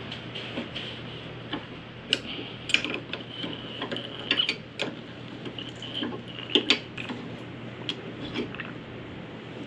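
Metal hand tool clicking and scraping on the La Marzocco GS3 espresso machine's brew group as its central brew-shaft fitting is worked loose, in irregular sharp clicks and ticks, the loudest around the middle.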